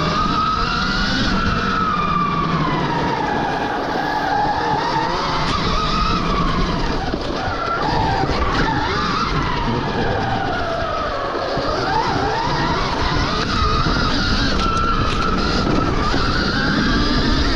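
Stark Varg EX electric dirt bike's motor whining as it rides trails, the pitch rising and falling over and over with throttle and speed, over a steady rushing noise.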